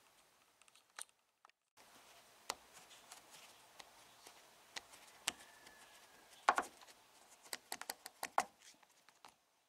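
Faint scattered clicks and taps of a plastic trim tool pushing the lip of a rubber T-top weatherstrip into its channel, with a quick run of them from about six and a half to eight and a half seconds in.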